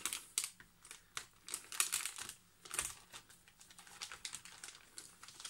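Blue plastic anti-static bag crinkling and crackling in short irregular clicks as a new laptop LCD panel is handled inside it, loudest about two and three seconds in.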